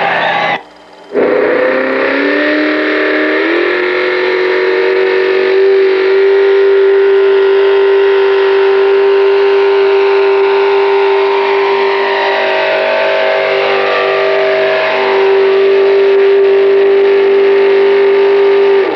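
Pulling tractor's engine at full throttle hauling the sled. After a brief dropout near the start, its pitch climbs in a couple of steps over the first few seconds, then holds steady at high revs.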